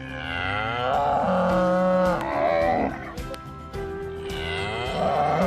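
Cow mooing: a long moo falling in pitch, a shorter moo just under three seconds in, and another beginning near the end.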